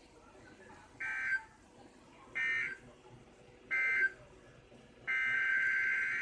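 NOAA Weather Radio's SAME digital data tones: three short buzzing bursts about 1.4 s apart, the end-of-message code closing the warning. A longer burst starts about five seconds in, the data header opening the next alert.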